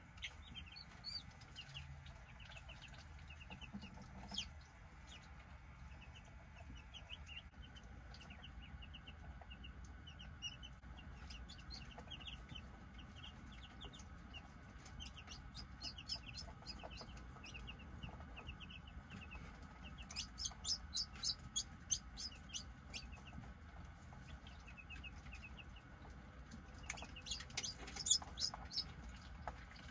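Newly hatched chicks and ducklings peeping in many short, repeated chirps over a low steady hum. Bursts of sharp little clicks come about two-thirds of the way through and again near the end.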